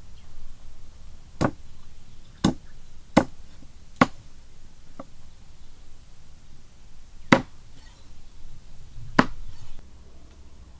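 Cleaver chopping an eel into pieces on a wooden tree-trunk chopping block: six sharp chops at uneven intervals, with a fainter one between them.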